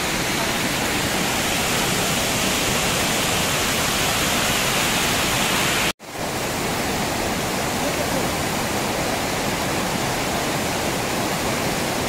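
Waterfall rushing with a steady, even roar of falling water. About halfway through, the sound drops out for an instant and comes straight back.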